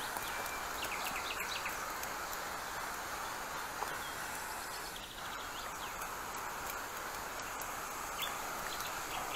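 Hand-pumped pressure sprayer's nozzle hissing steadily as it sprays weedkiller, easing briefly about five seconds in. Small birds chirp in short trills now and then.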